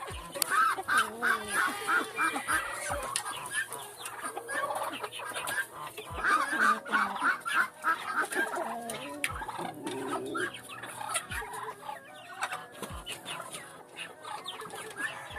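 Hens clucking, with two long runs of rapid, loud clucks, near the start and again about six seconds in, and quieter calls between. A few short low thumps are heard now and then.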